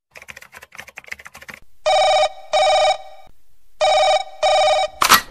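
A run of quick clicks, then a telephone ringing in two double rings, each ring a steady pitched tone. Near the end come two loud sharp knocks.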